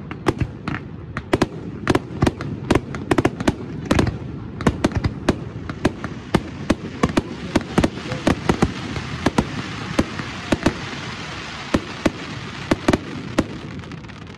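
Fireworks display: a rapid, irregular barrage of sharp bangs from bursting aerial shells, with a continuous hiss that swells through the middle of the barrage.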